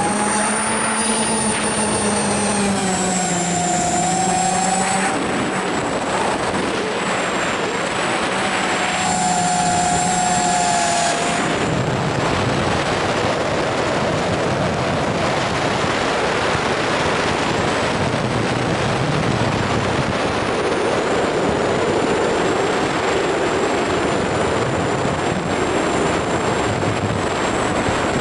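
FPV quadcopter's electric motors and propellers buzzing in flight, the pitch sliding up and down as the throttle changes. The tones fade out about eleven seconds in, leaving a steady rushing noise.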